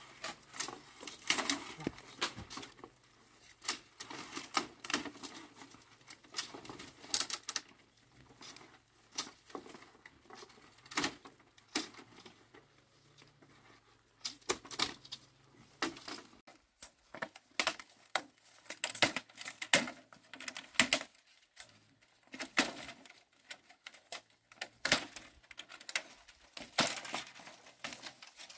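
Bamboo being split and trimmed with machetes: irregular sharp knocks, cracks and wooden clatter, coming in clusters with short pauses.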